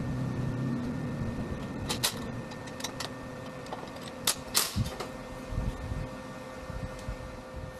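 A handful of sharp metallic clicks and knocks, bunched around the middle, as a steel-tube cargo rack is handled and set against the bike's frame, over a steady background hum.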